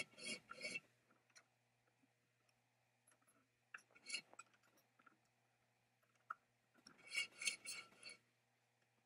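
Three short bursts of scraping with rapid clicks: one at the start, one about four seconds in, and a longer one about seven seconds in.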